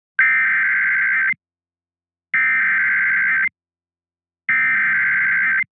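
Emergency Alert System SAME header: three bursts of digital data tones, each about a second long, with about a second of silence between them. It opens an alert coding a severe thunderstorm warning.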